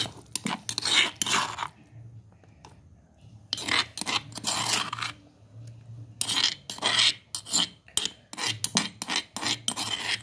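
Metal spoon scraping ground chutney out of a stone mortar: runs of rasping scrapes against the stone, broken by short pauses.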